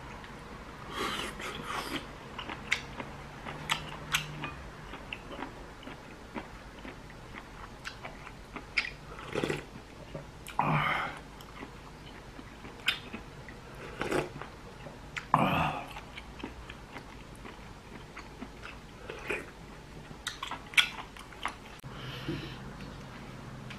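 A person eating seafood ramyeon: chewing, a few longer slurps of noodles and broth, and light clicks of chopsticks and spoon against the bowl.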